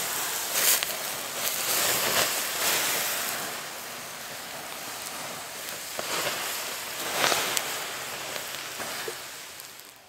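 Water poured from a plastic bottle onto a campfire's hot embers, hissing and sizzling as it douses the fire. The hiss swells several times as the pour goes on and dies away near the end.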